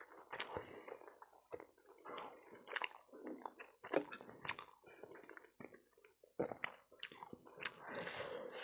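Close-miked chewing of noodles and pork momo: irregular wet mouth sounds and smacks, with many short sharp clicks scattered through.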